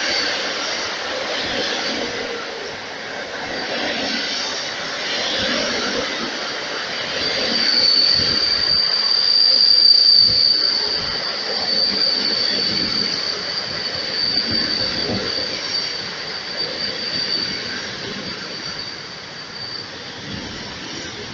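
Passenger train coaches rolling past at the platform, with steady wheel and running noise. A high, thin squeal from the wheels sets in about seven seconds in, is loudest around ten seconds, and dies away as the sound tapers off near the end.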